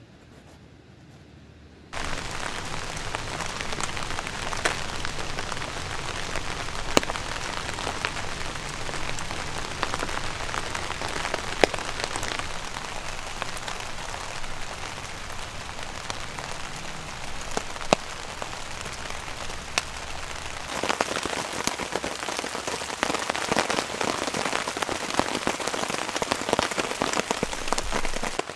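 Steady rain falling on a camping tarp and the forest around it, with single louder drops now and then. It starts suddenly about two seconds in, after a faint hiss, and grows a little louder in the last several seconds.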